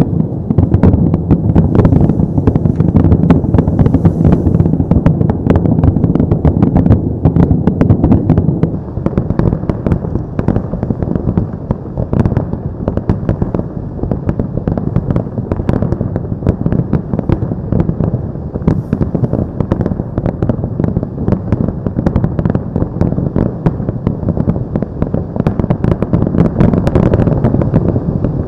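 Aerial fireworks barrage: dense, rapid, overlapping bangs and crackling from bursting shells over a continuous rumble. It eases somewhat after about nine seconds and swells again near the end.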